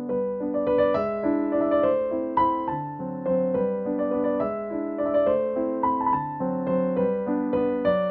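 Instrumental piano music: a melody of single notes struck every half second or so over held lower chords.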